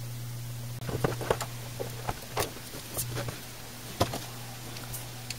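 Handling noise: a small circuit board and its cables being moved and set down on a desk, a string of light knocks and rustles over about three seconds, over a steady low hum.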